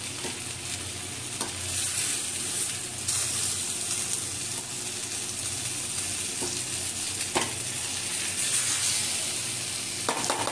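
Egg halves, onions and spices frying in oil in a stainless steel kadai on a low flame, with a steady sizzle. A slotted spatula stirs and scrapes the pan, giving a few sharp clicks against the metal.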